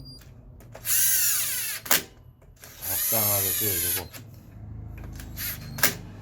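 Electric power driver spinning in two short runs of about a second each, its pitch rising and falling, as the clutch bolts of a Hyosung Comet 125 are run in a little at a time rather than fully in one go. A sharp click follows each run.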